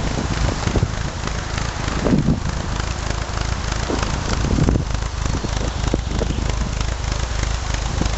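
Leyland Mini 1000's 998 cc A-series engine running as the car reverses slowly onto gravel, with the tyres crunching and crackling over the stones over a steady low engine hum.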